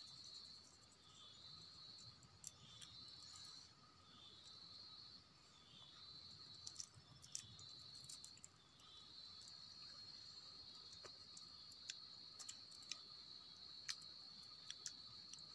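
Faint insects trilling: repeated high calls, each with a short falling tail, that merge into one unbroken trill about halfway through. A few scattered faint clicks.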